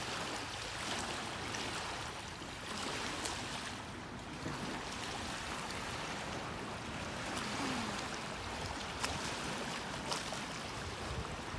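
Waves washing onto a beach: a steady hiss of surf that swells and eases every few seconds.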